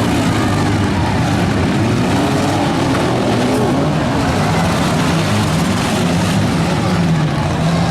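Many compact car engines running and revving together in a demolition derby heat, their pitches rising and falling over one another in a steady, loud din.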